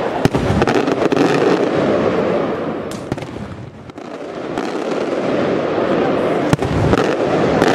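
Aerial firework shells bursting in a finale barrage: a dense, continuous wash of explosions punctuated by several sharp bangs. It thins out briefly about halfway through, then builds again.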